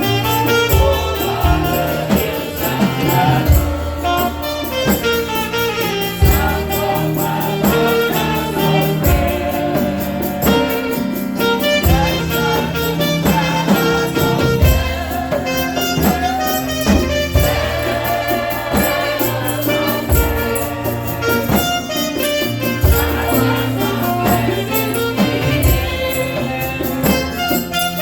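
Gospel praise music from a church choir and band: singing over a steady bass, with a fast, even tambourine beat.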